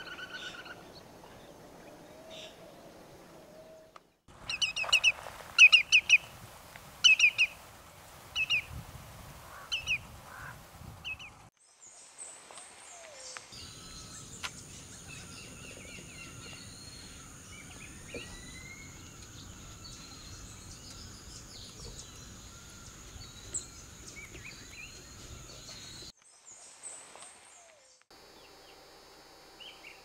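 Shorebird calls: a run of about a dozen loud, sharp, repeated calls for several seconds, then fainter scattered high calls and chirps over a steady high, thin tone and background noise.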